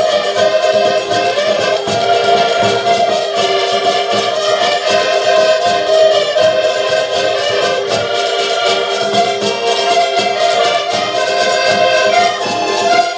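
Portuguese folk ensemble playing an instrumental tune live: several accordions sound held, full chords over a steady, regular drum beat, with a small stringed instrument among them.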